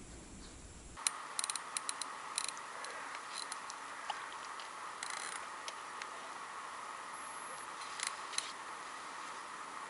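Faint scattered clicks and light ticks, clustered in the first few seconds with a few more later, over a quiet steady background hiss.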